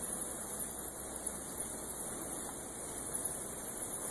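A huge swarm of bats streaming out of a cave: a steady, dense hiss of wings with high chittering squeaks.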